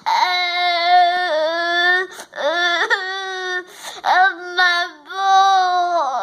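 Young child crying in several long, drawn-out wails, each held on a steady high pitch for a second or two with short breaks between. The crying is loud.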